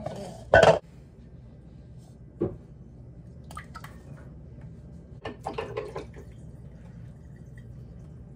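Pale liquid poured from a small ceramic bowl into a plastic mixing bowl, with splashing midway through. A short, loud knock comes first, about half a second in.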